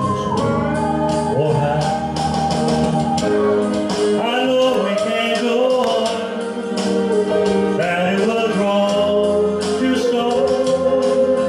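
Music: a slow ballad with a man singing over the backing.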